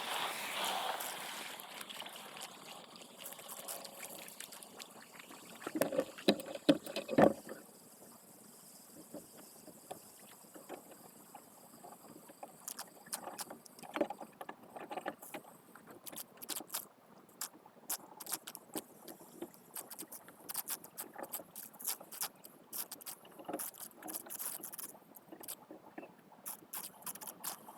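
Water splashing and wet grass rustling as grass is pulled from a flooded drain by hand, with a run of loud splashes about six seconds in and scattered crackling rustles after.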